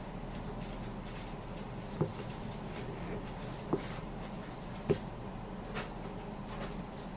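Small hammer tapping to peen the pivot pin of a straight razor's scales: three sharp taps spread over a few seconds, then two fainter ones, over a steady low hum.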